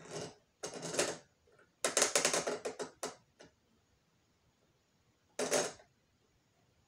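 Plastic lamp heads of a Lithonia exit sign and emergency light combo being swivelled by hand, clicking and rattling in several short bursts, the longest a run of rapid clicks about two seconds in.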